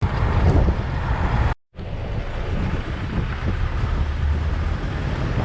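Loud wind buffeting the microphone, a low rumbling noise with water sounds, as on a moving boat. It cuts out for a moment about one and a half seconds in, then carries on.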